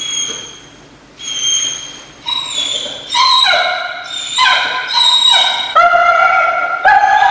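German Shepherd whining: short high whines early on, then from about two seconds in a string of five or so louder, drawn-out cries that each fall in pitch, an aroused protection dog held in a down-stay as a stranger appears at the door.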